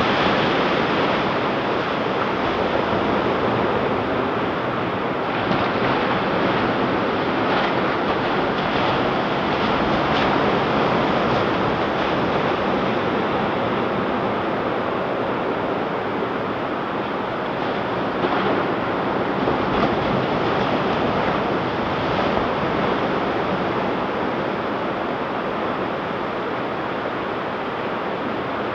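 Ocean surf breaking and washing up the beach in a continuous rush, swelling and easing in slow waves, with some wind on the microphone.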